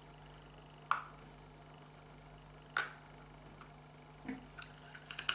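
Two sharp clicks about two seconds apart, then a few lighter ticks near the end: the small parts of a Mercedes W202 reverse light switch being worked apart with a flathead screwdriver.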